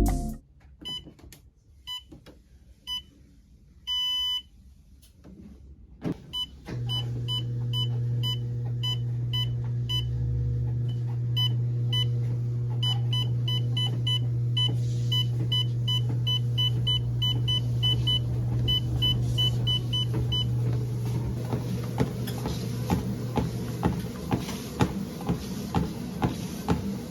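Car warning chime beeping: a few single beeps a second apart, then a run of rapid, evenly spaced beeps. A steady low hum from the car starts suddenly about seven seconds in and runs under the beeps until near the end.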